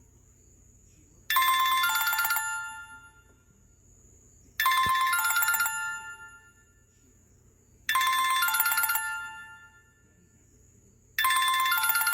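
Alcatel mobile phone ringtone: a short, bright chiming melody that plays four times, about every three seconds, each phrase ringing out and fading before the next.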